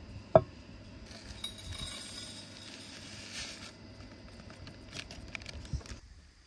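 A metal titanium camp cup clinks sharply on a wooden table about half a second in, with a brief ring. This is followed by a couple of seconds of paper-packet rustling as a drink pouch is handled and emptied into the cup, with small knocks and a dull thump near the end.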